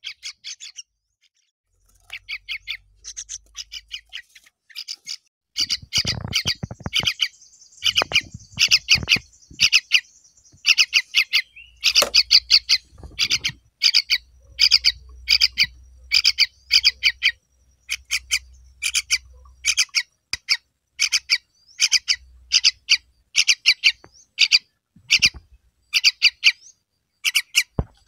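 Fledgling songbird chicks calling over and over with harsh, high begging squawks in short bursts. The bursts come about twice a second through the second half. A few low thumps sound near the start.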